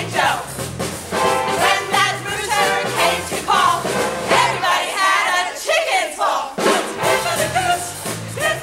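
A comic stage song: voices singing over an instrumental accompaniment with a steady low bass line. The bass drops out for about two seconds past the middle, then comes back in.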